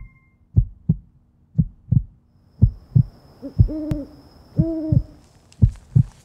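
Slow heartbeat, a low lub-dub about once a second, with an owl hooting twice midway. A faint high steady tone runs under the hoots, and a hiss comes in near the end.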